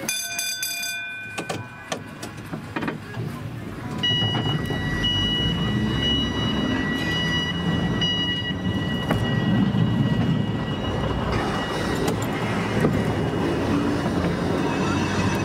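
Volk's Electric Railway car running along its narrow-gauge track: a steady rumble of wheels on rails, with a steady high electric whine from about four seconds in until near the twelfth second. A short ringing tone comes at the very start.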